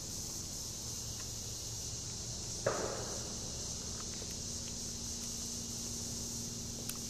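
Steady high-pitched chorus of insects, with one sudden sharp thump about three seconds in that dies away over half a second.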